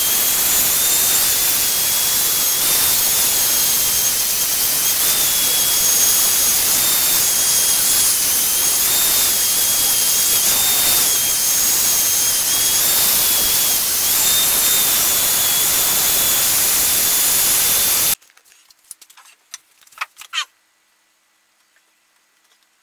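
Handheld angle grinder with a sanding disc grinding down a wooden paddle blade: a loud, steady motor whine whose pitch dips and recovers slightly as the disc bites. It cuts off suddenly about 18 seconds in, followed by a few light knocks and then quiet.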